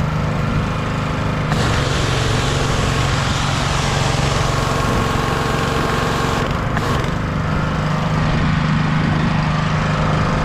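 Simpson 3100 PSI gas pressure washer running steadily, its engine at a constant pitch. About a second and a half in, a loud hiss of water spraying from the wand joins it, dropping out briefly a little past the middle before resuming.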